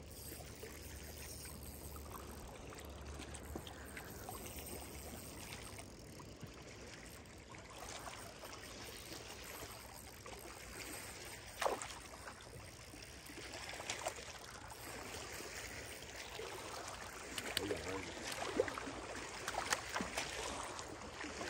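Quiet, steady lapping of lake water, with a few faint brief sounds about halfway through and several more near the end.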